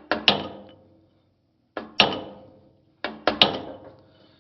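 Hammer striking a pin punch against a tight slewing-cylinder pivot pin, about seven sharp metal blows in three quick groups, each ringing briefly. The pin is seized and does not move under the blows.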